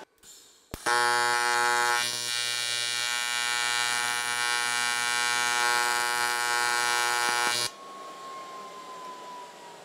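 AC TIG welding arc on an aluminum casting: a loud, steady electrical buzz that starts sharply just under a second in as the arc strikes and cuts off suddenly near eight seconds when the arc is broken.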